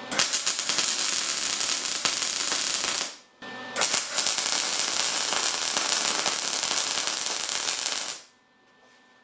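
MIG welding arc crackling steadily while tack welds are laid on quarter-inch steel plate. It runs in two stretches, about three seconds and then about four and a half seconds, with a short break between, then stops.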